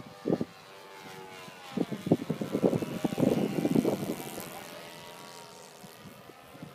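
A small propeller aircraft's engine hums steadily in the distance overhead. Loud, irregular buffeting hits the microphone from about two to four seconds in.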